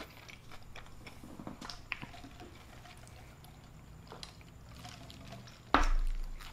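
Sipping a drink through a straw, with faint wet mouth sounds and small clicks. Near the end comes a sudden loud thump with a low rumble.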